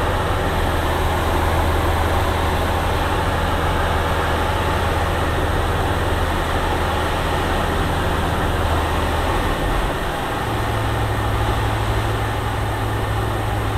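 Light aircraft's engine and propeller droning steadily in the cockpit in flight. About ten seconds in, the drone shifts to a slightly higher pitch and holds there.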